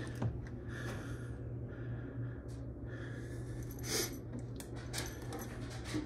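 A steady low hum under short clicks and rustles of hands handling parts at a gas furnace's inducer motor; the loudest is a sharp click about four seconds in.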